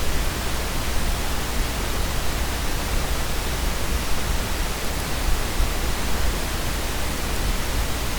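Steady hiss of recording noise with a low hum under it, between spoken narration.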